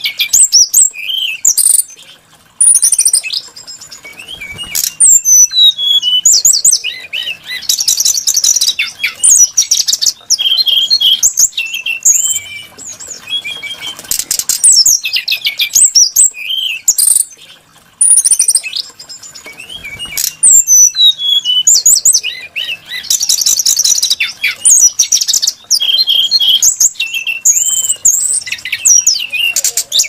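Brown-chested jungle flycatcher singing a loud, varied song of high whistled notes, slurred glides and fast buzzy trills, phrase after phrase with brief pauses.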